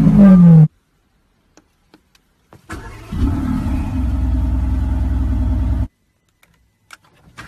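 A car engine revving with a falling pitch, cut off abruptly. After a pause, an engine starts and runs at a steady high idle for about three seconds, then cuts off suddenly.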